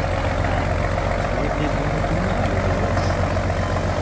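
Engine of the riverboat MV Adventurer II running steadily as the boat moves past, a constant low drone.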